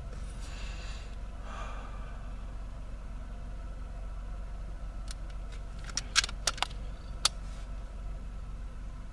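A few sharp clicks in the middle, the loudest a little past six seconds in, over a steady low rumble.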